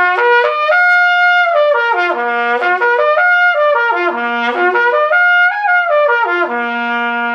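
Trumpet playing a lip slur exercise: connected notes stepping up and down through the open-valve harmonic series, about three times over, ending on a held low note. The note changes are led by the air at a moderate dynamic, not too loud.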